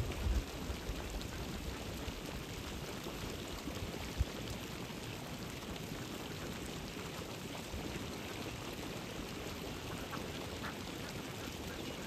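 Steady open-air hiss with no clear single source. Short low rumbles of wind buffet the phone microphone near the start and once about four seconds in.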